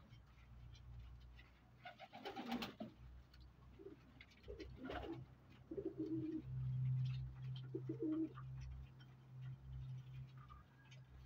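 Pakistani flying pigeons cooing in their loft: several short, low coos, with a brief rustle about two seconds in and a few small clicks over a steady low hum.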